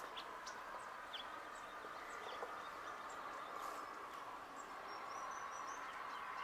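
Faint outdoor ambience: a steady background hum with scattered short, high bird chirps.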